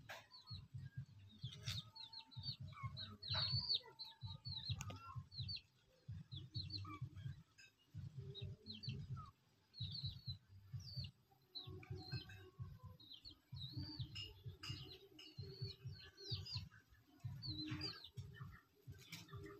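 Chicks peeping in a steady stream of short, high, falling chirps, over patches of low rumbling.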